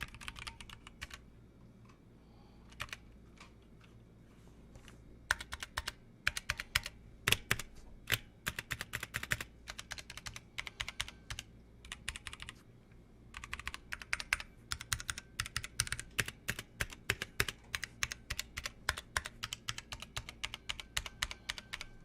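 Typing on a Massdrop ALT High Profile mechanical keyboard with its Halo True tactile switches and stabilizers still stock and unlubed. The keystrokes come in fast runs, with only a few scattered strokes for a few seconds near the start and a brief pause about halfway through.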